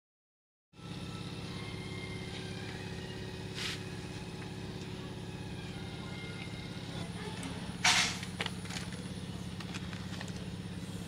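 A steady low engine-like hum, like a distant motor running, starting after a brief dropout. Over it come the sounds of rice being served from a steel bowl: a short scrape about four seconds in, a louder scrape about eight seconds in, then a few light clicks.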